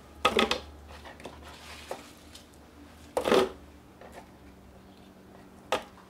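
Cut apple chunks dropped by the handful into a clear plastic food processor bowl, landing with a clatter twice, about a quarter second in and again at about three seconds, with a shorter single knock near the end.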